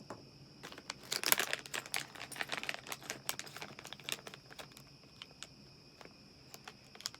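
Packaging of an opened pin pack crinkling and crackling as the pins are taken out, busiest over the first few seconds and then thinning to scattered clicks.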